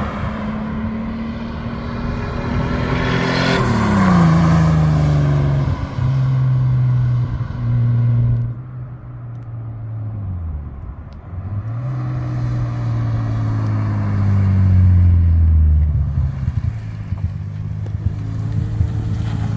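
Turbocharged car engine pulling under load with its revs rising and falling. About three and a half seconds in, the revs drop and the HKS SSQV blow-off valve, fitted with a 3D-printed insert, vents with a loud hiss. The engine eases off near the middle, then pulls again.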